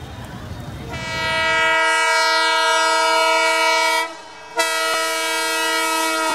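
Locomotive air horn sounding two long blasts: the first starts about a second in and is held steady for about three seconds, and after a short break the second starts and is held to the end.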